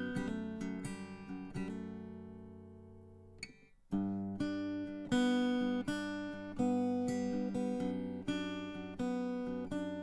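Background music of acoustic guitar, picked and strummed. The notes ring and fade away over a couple of seconds, break off briefly just before four seconds in, then pick up again with a steady pattern.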